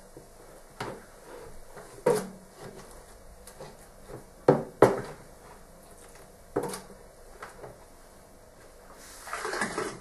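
Irregular knocks and clatters of a plastic washing-up bowl and a wooden laundry stick against the rim of a spin dryer as wet washing is lifted into the drum: about six sharp knocks, the two loudest in quick succession midway, then a longer scraping clatter near the end.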